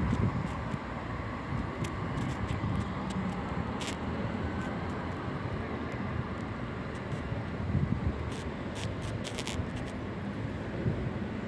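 Regional train pulling away from the station into the distance: a steady low engine and running noise, with scattered light clicks.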